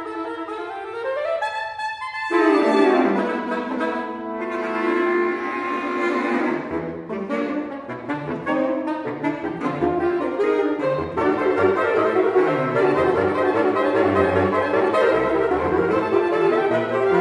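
Saxophone quartet (soprano, alto, tenor and baritone saxophones) playing a tango. A rising line breaks off briefly about two seconds in, then the full group comes in loudly, and from about seven seconds a busier rhythmic passage runs over low baritone notes.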